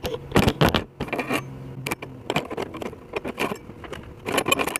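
Steel rods and a steel disc being handled on a steel-topped workbench: a scattered run of light metallic clinks, knocks and scrapes.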